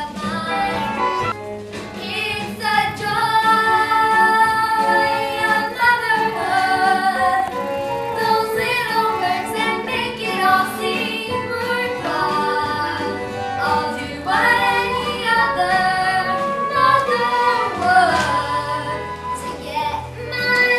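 Child's voice singing a stage-musical song over instrumental accompaniment, with long held notes and sliding pitches.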